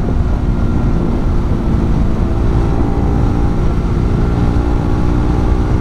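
Motorcycle engine running at a steady cruise, with heavy wind rumble on the helmet microphone.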